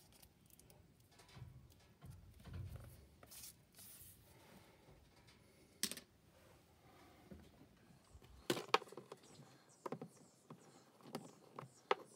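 Faint, scattered clicks and taps of hands and tools working on a uPVC window frame and a double-glazed unit, several sharp ticks in the second half.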